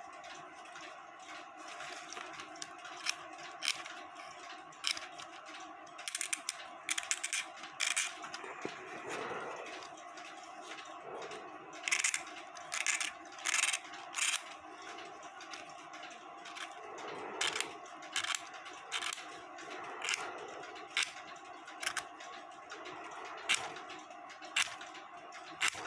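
Short, irregular scrapes and clicks of a tool working on the wooden top of a cuckoo clock bellows as it is cleaned, some in quick runs of several strokes, over a faint steady hum.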